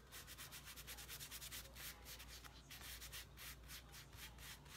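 Hands rubbing quickly back and forth on a cloth towel, a faint, even swishing of about six strokes a second.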